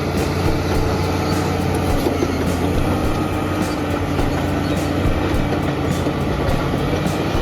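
Heavy tracked machine's diesel engine running steadily, with occasional faint clanks.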